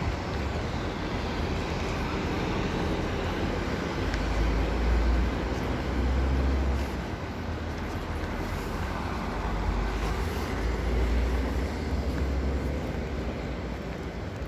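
Moving train, a steady rolling noise over a deep rumble that swells twice.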